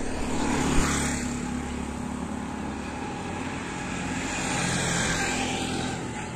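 Motor traffic passing on a road, with a low engine hum and tyre noise swelling as vehicles go by, about a second in and again around five seconds in. A short knock comes about a second in.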